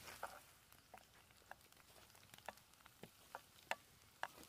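Faint, irregular pops and ticks of food frying in a pan over a small wood campfire while it is stirred, about two or three a second.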